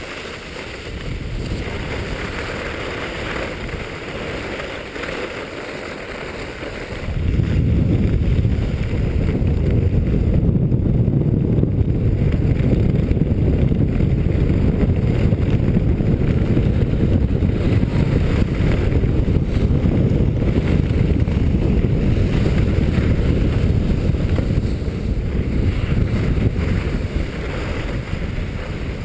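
Wind buffeting the microphone of a camera worn by a skier going downhill, over a hiss of skis sliding on packed snow. About seven seconds in, the wind rumble jumps sharply in loudness and stays loud until it eases a little near the end.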